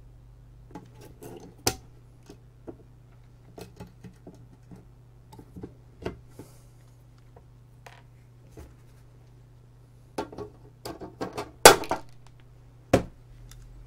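Scattered light clicks and taps from an aluminium instrument case being handled and set down on a workbench. The clicks come thicker and sharper near the end, with the loudest one then, as a pair of side cutters is brought up to the case.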